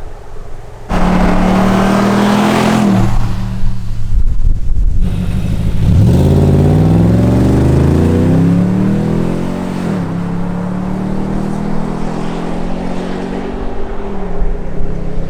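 Nissan Y62 Patrol's V8 running through a Torqit performance exhaust under acceleration. The exhaust note comes in suddenly about a second in, then climbs in pitch and drops sharply, like a gear change, about ten seconds in, before rising and falling again near the end.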